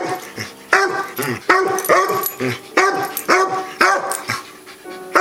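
A dog barking repeatedly in play, about two short barks a second, with a pause near the end.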